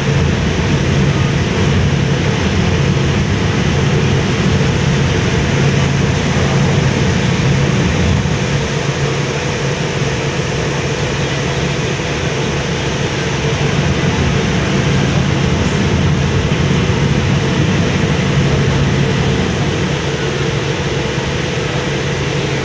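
Steady low drone of a car ferry's diesel engines, with a constant rush of wind and water over it.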